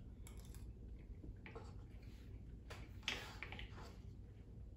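Quiet eating: a few soft clicks and scrapes from a metal spoon in a paper oatmeal cup, along with chewing, the clearest about three seconds in, over a low room hum.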